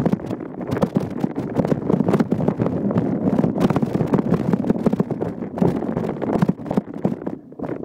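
Mountain bike rolling over a bumpy trail: a steady rumble of tyre noise with dense, irregular rattling knocks from the frame and the camera mount, easing briefly just before the end.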